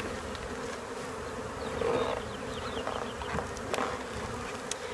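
Honeybees from a nucleus colony buzzing in the air around an open hive: a steady drone that swells louder for a moment about two seconds in, with a couple of faint clicks later on.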